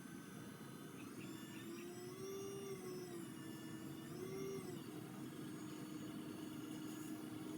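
Small electric motor whirring. About a second in it starts a pitched hum that rises and falls twice, then holds steady over a low rumble.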